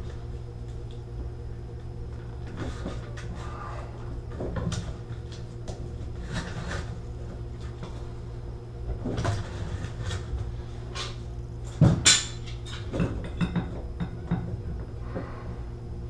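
Threaded metal bathtub spout being turned by hand and gripped with tongue-and-groove pliers: scattered scrapes, clicks and knocks of metal on metal, the loudest a sharp clank about twelve seconds in.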